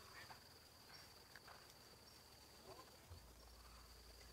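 Faint, steady high-pitched insect drone, with a few soft ticks.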